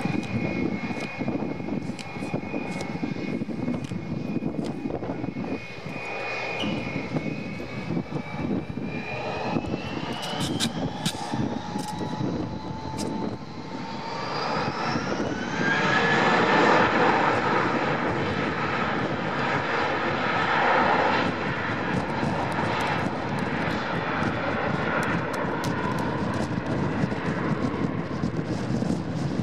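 Airbus A321-231's IAE V2500 turbofan engines whining steadily at low power, then spooling up with a rising whine about ten seconds in. A second rise follows around fifteen seconds in into a loud, steady rush of engine noise at takeoff thrust as the jet starts its takeoff roll.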